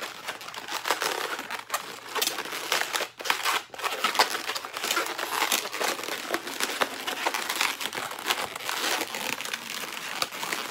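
Latex modelling balloons, 260s and wheel balloons, rubbing and crinkling under the hands as the ends are twisted in and the wheels pushed into place: a continuous rubbery rustle with many small scratchy clicks.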